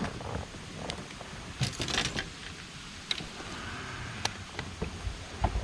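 Scattered light clicks and knocks of fishing tackle and kayak handling while a bass is being played on the line, with a short cluster about two seconds in and a low thump near the end.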